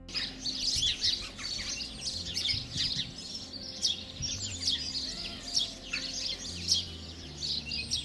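A flock of birds calling, many short high chirps overlapping densely.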